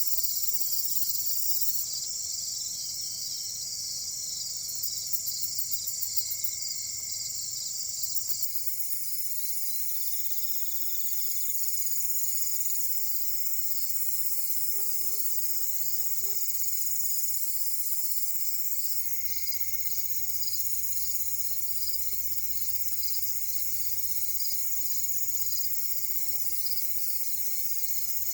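Chorus of crickets and other insects chirring steadily in a summer field, a dense high trilling whose pattern shifts abruptly a few times.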